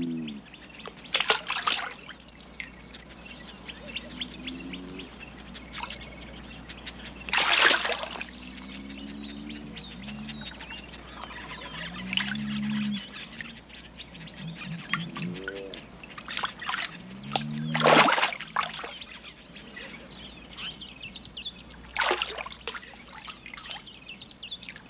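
Shallow water splashing and trickling as lions wade and paw at it, with sharp splashes about 1.5, 7.5, 18 and 22 seconds in. Between them come short, low whooping calls every few seconds from an African giant bullfrog.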